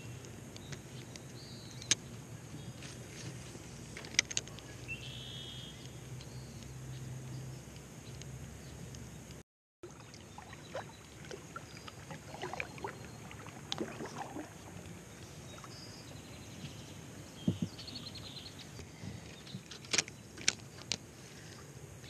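Kayak paddling: the paddle dipping and water splashing against the plastic sit-on-top kayak, with scattered sharp knocks and clicks of the paddle and fishing gear against the hull and reel.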